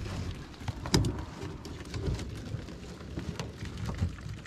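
Scattered clicks and light knocks of hands rummaging in a nylon-mesh crab pot and against its wire frame, the sharpest knock about a second in.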